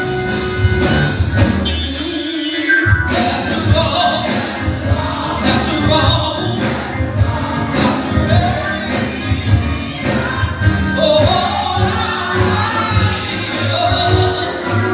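Gospel music with voices singing over a band; the bass drops out briefly about two seconds in before the singing carries on.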